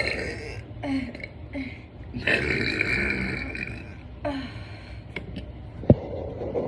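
A woman burping loudly several times: short burps in the first couple of seconds, then one long burp lasting nearly two seconds, and a last short one after it. A sharp click comes near the end.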